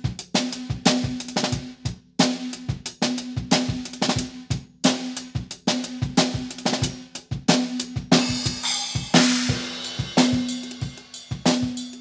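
Outro music of a drum kit playing a busy pattern of snare, bass drum and toms, with a cymbal crash about eight seconds in.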